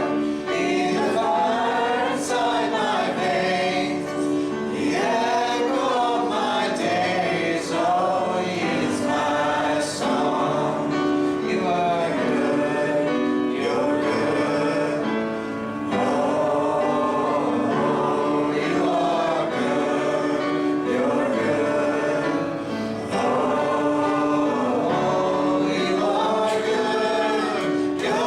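Congregational gospel hymn: a choir of mixed voices sings over a steady held instrumental accompaniment.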